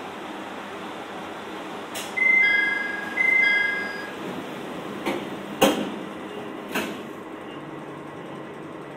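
Inside a KiHa 2200 diesel railcar idling before departure, a two-note door-closing chime sounds twice. The sliding doors then shut with three thuds, the middle one the loudest, signalling that the train is about to leave.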